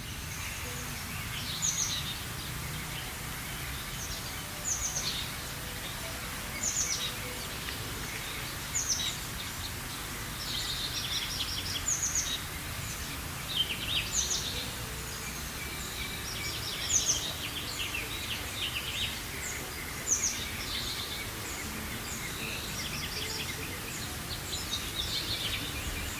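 Songbirds singing short, repeated phrases every second or two, some as quick downward strokes and some as fast trills, over a steady background hiss and low rumble.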